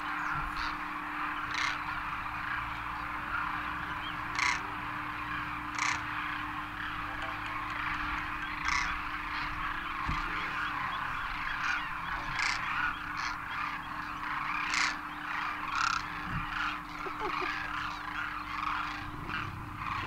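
Large flock of demoiselle cranes calling together in flight and as they land: a dense, continuous chorus of honking, croaking calls, with single louder calls standing out every second or two. A faint steady hum runs underneath.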